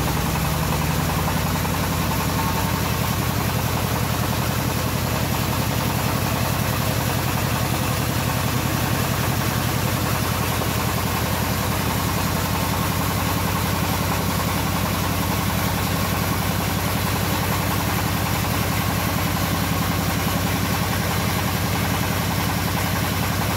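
Stationary engine driving a homemade bandsaw sawmill, running steadily at an even pace with no log being cut.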